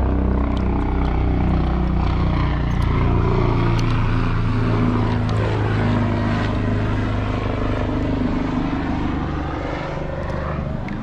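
Helicopter passing, its rotor and engine giving a loud, steady low drone that eases off near the end.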